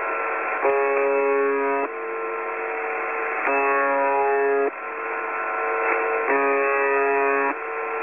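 A slow, repeating tune of held notes, each lasting about a second and a half, heard through narrow, hissy radio audio with the lows and highs cut off. This is the interval signal of a Russian numbers station, playing on a shortwave broadcast ahead of its coded number readout.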